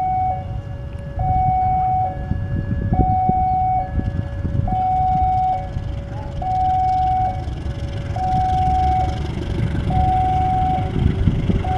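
Level-crossing warning alarm alternating between a high and a low tone, each held a little under a second, over the low rumble of a BB 203 diesel locomotive pulling away with its train. The engine noise grows heavier from about four seconds in as the locomotive works harder, sending up black exhaust.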